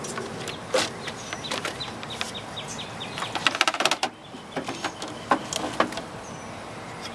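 Radiator being lifted out of a pickup's engine bay, knocking and scraping against the surrounding parts as it comes free. There are scattered clicks and knocks, with a quick rattling run of clicks a little past halfway.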